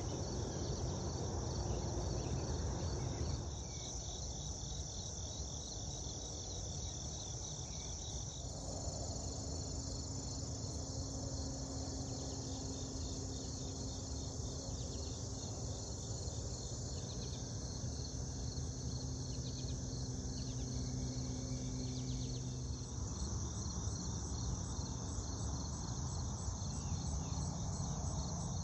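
A steady, shrill chorus of crickets and other insects, chirping in a fast, even pulse. Its level shifts a few times, and a low rumble runs underneath.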